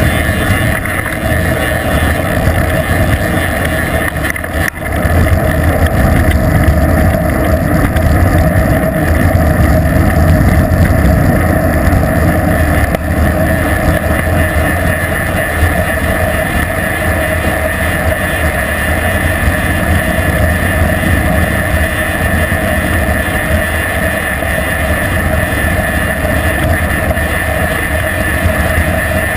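Wind rushing over a bicycle-mounted GoPro camera on a fast downhill ride, a loud steady rush with a brief dip about four and a half seconds in.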